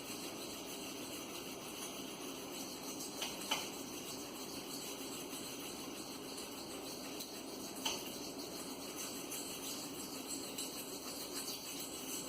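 Maxamet steel knife blade scraping steadily across a cheap sharpening stone, with a few light clicks. The stone barely cuts, so the edge sounds like it is only sliding on the surface.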